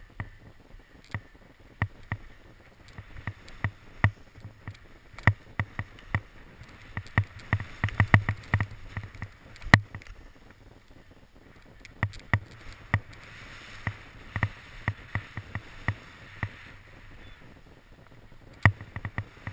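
Skis scraping and swishing through chopped, crusty snow during a fast descent, with a steady hiss broken by many sharp, irregular knocks as the skis clatter over the bumps.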